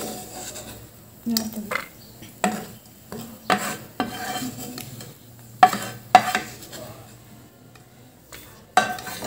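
Wooden spatula scraping and knocking against a frying pan in a series of separate strokes, scooping fried cashews out of hot ghee, with a louder knock near the end. The ghee sizzles faintly in the pan between strokes.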